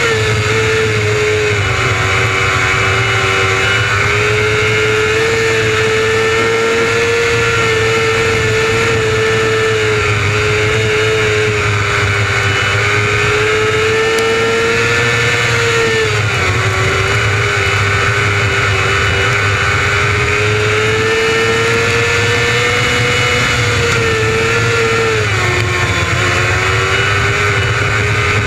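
600cc micro sprint car's motorcycle engine running hard and loud at a high, steady pitch, its note sagging briefly and climbing back twice, about halfway through and near the end.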